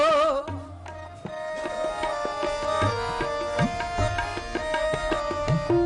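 Harmonium and tabla playing an instrumental interlude in Sikh kirtan, after a sung line ends about half a second in. The harmonium holds steady chords while the tabla plays strokes, with the bass drum's pitch sliding upward a few times.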